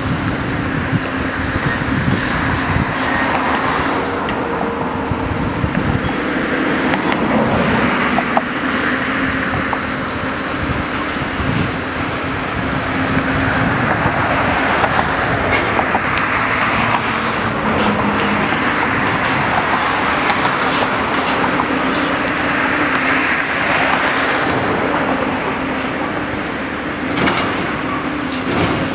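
Intermodal gantry crane's machinery running with a steady hum while it lowers a container onto a railcar, with scattered small clanks over general rail-yard noise.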